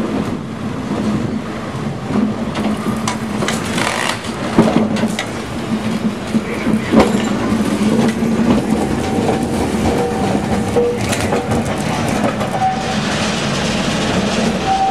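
1922 Birney single-truck streetcar running over the track and switches, its steel wheels clicking and knocking across rail joints and special work, over a steady low running hum.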